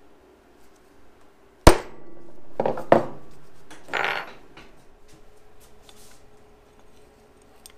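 Ball-peen hammer striking a steel punch on a quarter-inch steel plate to mark a hole centre for drilling. One hard ringing blow comes about a second and a half in, then two lighter taps a second later, and a short metal clatter about four seconds in as the tools are set down.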